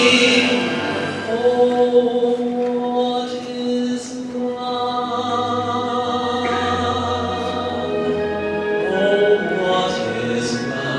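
A man singing a sacred solo, holding long sustained notes.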